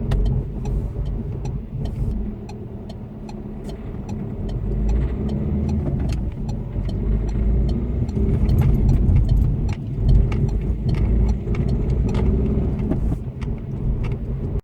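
Citroën C3 Picasso diesel engine running with repeated sharp ticking and clacking over its rumble, getting louder a few seconds in. This is the clatter the owner hears on giving gas, and suspects comes from at least one faulty injector that drips after closing.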